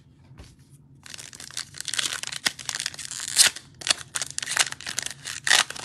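Foil wrapper of a Panini Mosaic football card pack crinkling and tearing as it is handled and ripped open, starting about a second in.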